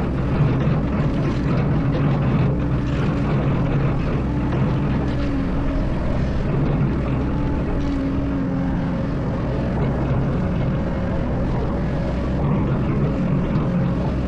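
Excavator's diesel engine running steadily, with a few faint knocks.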